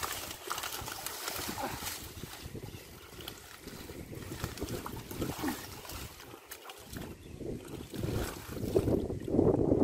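Hands sloshing and splashing through shallow muddy water, pulling up water hyacinth and mud with irregular wet squelches and rustles. The splashing grows louder near the end.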